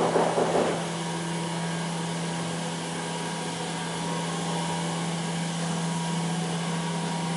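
A machine running steadily, a low hum with a whirring hiss like a blower or fan motor. A louder rough noise dies away in the first second.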